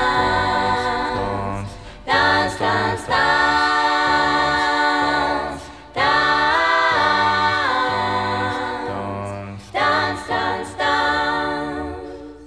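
Layered, wordless vocal harmonies like a small a cappella choir, sung in long phrases of about four seconds each with short breaths between. The voices fade away at the end.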